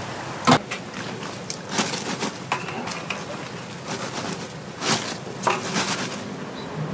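Donuts deep-frying in a wide aluminium pot of oil, a steady sizzle, with several sharp metallic knocks from a wire mesh strainer striking the pot as the fried donuts are scooped out.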